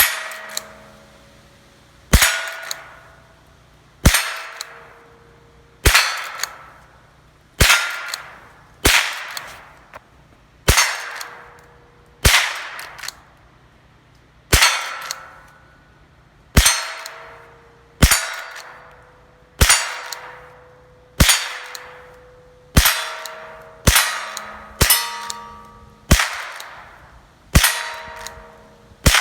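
A Marlin 39AS .22 LR lever-action rifle fired about nineteen times, roughly one shot every one to two seconds. Each shot is followed by the clang and ring of a steel target plate being hit.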